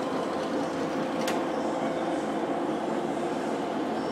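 Polamco/Wafum TUR 50 engine lathe running under power: a steady geared hum with several held tones, and one sharp click about a second in.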